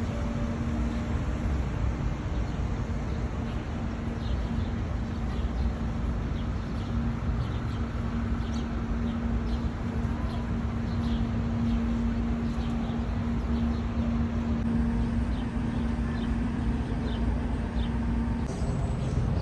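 Outdoor city ambience: a steady low rumble of traffic with a constant droning hum that stops shortly before the end, and short high chirps scattered through it.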